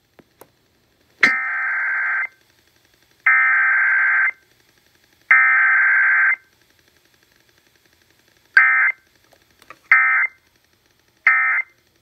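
Emergency Alert System data tones for a Required Weekly Test, played through a radio's speaker: three warbling header bursts of about a second each, a second apart, then after a short pause three quick end-of-message bursts.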